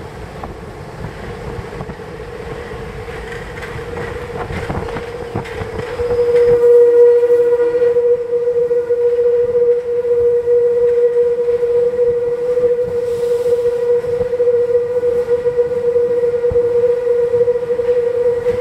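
Paris Métro train in a tunnel, running with a low rumble that builds as it gathers speed. About six seconds in, a loud, steady, high-pitched wheel squeal sets in as the train takes a curve, and it holds at one pitch to the end.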